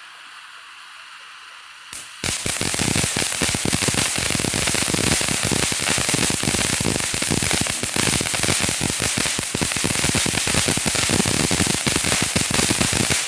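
TNT Fireworks' The 3 Emigos fountain firework erupting about two seconds in, after a single pop. It gives a loud, steady rushing spray thick with rapid crackles, then cuts off abruptly near the end.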